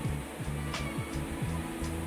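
Background music: a low bass line with some sliding notes over a light percussion hit that recurs about every second and a half.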